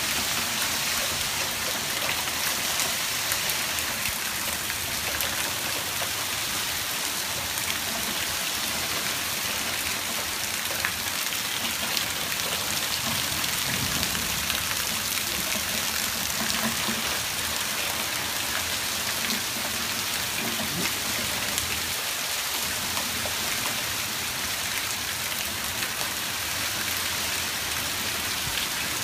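Rain mixed with small hail falling on pavement, lawn and foliage: a steady hiss dotted with scattered sharp ticks.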